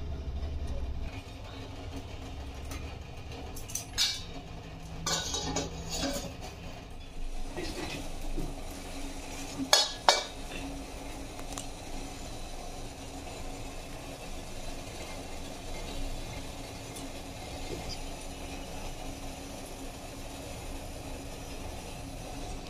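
Stainless steel cookware clinking and scraping as the lid comes off an idli steamer pot, with a loud double clang about ten seconds in and lighter clinks a few seconds before it.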